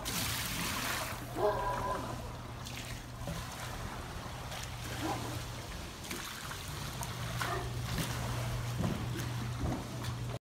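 Swimming pool water sloshing and spilling over the pool's edge onto the concrete deck, set surging by earthquake shaking.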